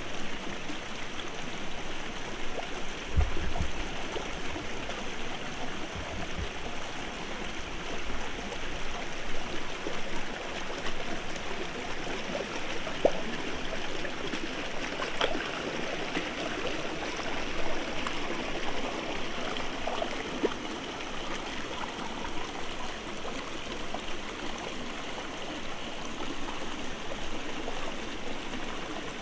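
Shallow rocky forest stream running and splashing steadily over stones and small cascades.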